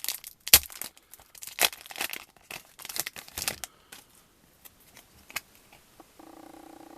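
Foil booster-pack wrappers crinkling and rustling as they are handled, loudest over the first three seconds or so, then a few faint clicks.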